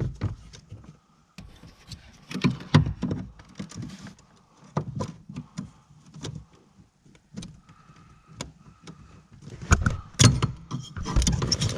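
Irregular clicks, knocks and light metallic rattles as the retaining clip is worked off the clutch master cylinder pushrod at the clutch pedal, with a cluster of louder knocks near the end.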